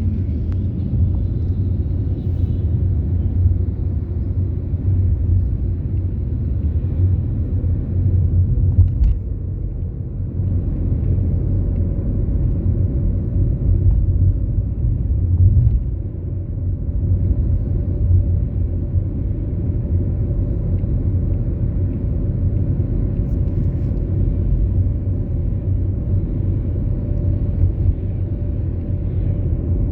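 Car on the move: a steady low rumble of engine and road noise, with a faint steady hum joining about eleven seconds in.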